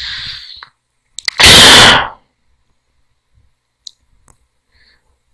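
A short hiss, then a loud, distorted blast of noise close on the microphone lasting under a second, followed by a few faint clicks, the kind a computer mouse makes while scrolling.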